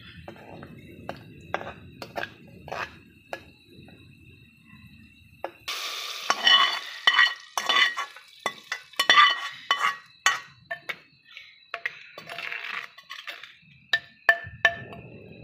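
A metal spoon scraping and clicking in a steel karahi of tadka, with garlic and dried red chillies in oil. About six seconds in there is a sudden hiss as the hot tadka is poured into a clay pot of cooked moong daal, with sharp clinks of the spoon against the karahi and pot as it is scraped out and stirred in.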